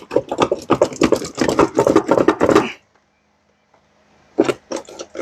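Rapid mechanical clicking and clattering of hand tools working on the engine, stopping for about a second and a half near the middle, then starting again.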